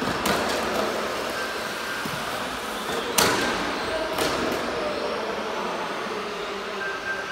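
1:10 scale Tamiya TT01E electric RC trucks racing: a steady whir of motors and tyres, broken by sharp knocks just after the start, about three seconds in and about four seconds in. The knock about three seconds in is the loudest.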